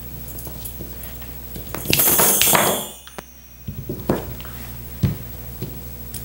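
Bolt cutters snipping sinuous zig-zag steel spring wire to length, with a loud metallic rattle of the spring wire on the bench lasting about a second, then a few sharp single clicks.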